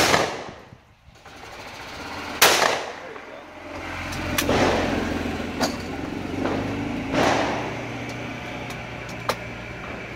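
Shotgun fired twice, about two and a half seconds apart, each report trailing off in an echo. Several fainter reports follow, then a sharp click near the end.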